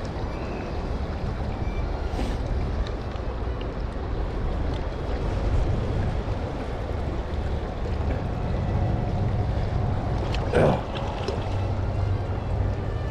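Steady rush of river water with wind buffeting the microphone, and one brief knock about ten and a half seconds in.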